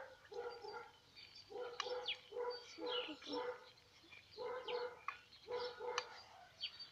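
A dog barking repeatedly in short barks at irregular intervals, with small birds chirping in quick, high, falling notes.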